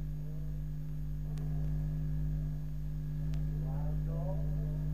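Steady low electrical hum, a few constant tones, on an old rehearsal-session tape, with faint voices talking in the background about a second in and again near the end.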